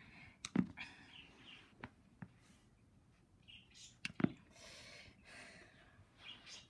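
Plastic toy animal figurines knocked against each other and set down on a carpet: a handful of sharp clicks and soft thuds, two of the thuds heavier, with rustling of handling between them.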